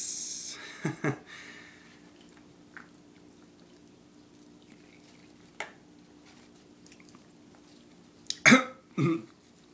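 A man clearing his throat with two short coughs about half a second apart near the end, after a quiet stretch with a steady low hum and a couple of faint clicks.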